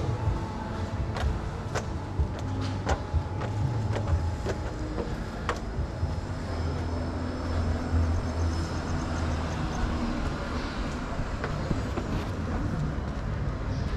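A motor vehicle's engine running, a low rumble that swells around the middle, with several sharp clicks in the first half.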